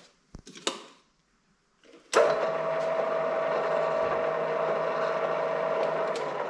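A few clicks, then the MDW 3000 column drill press starts about two seconds in, its motor and gearbox running steadily with a held whine. It runs without knocking on the gear repaired with 3D-printed teeth. The whine stops near the end and the machine begins to run down.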